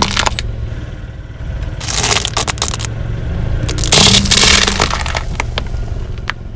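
Car tyre rolling over and crushing brittle objects: two spells of crunching and cracking, about two and four seconds in, with scattered sharp cracks, over the steady low hum of the car's engine.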